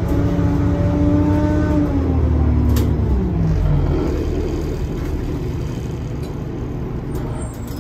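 Orion VII diesel city bus engine heard from inside the passenger cabin, pulling under power with a steady pitched drone over a low rumble. About two seconds in, the pitch glides down as the revs drop, leaving the lower running rumble and road noise.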